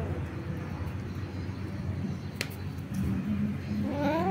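A steady low hum, a single sharp click about halfway through, then a kitten's meow that starts near the end, rising and falling in pitch.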